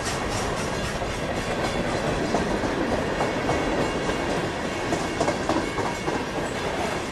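Freight cars rolling past on the nearby track: a steady rumble and clatter of steel wheels on the rails.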